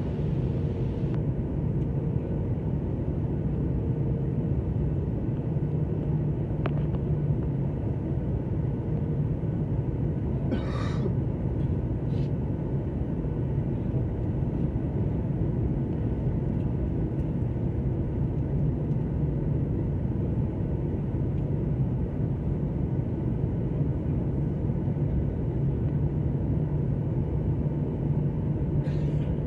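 Jet airliner cabin noise at a window seat on approach: the steady low rumble of the engines and airflow, with a constant hum running under it. A short hiss cuts in briefly about eleven seconds in.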